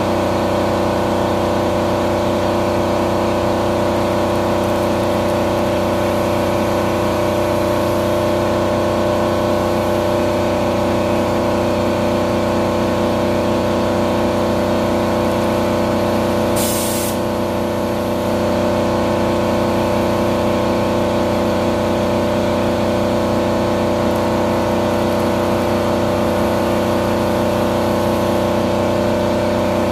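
Haas VF-2 CNC vertical machining centre milling a part under flood coolant: the spindle and cutter give a steady multi-toned running sound over the hiss of coolant spray. A short, sharper hiss comes about halfway through.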